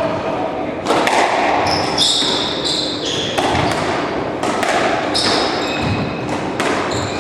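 Squash rally: sharp cracks of the ball off rackets and walls about once a second, with short high squeaks of court shoes on the wooden floor between them, ringing in the hall.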